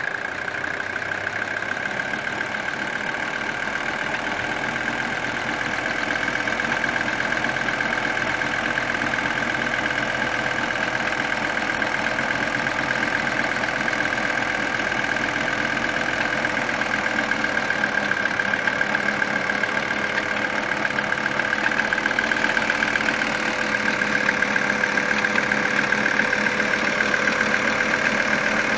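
1980 Mercedes-Benz 300CD's five-cylinder diesel engine idling steadily with a knock. The owner finds the knock more audible with the air conditioning on and could not locate it with a mechanic's stethoscope.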